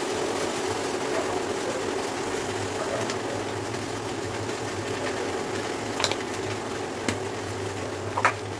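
Induction cooktop running at its 1300 W setting with an empty pan on it: a steady hum from its cooling fan and coil. A few light clicks come in the second half.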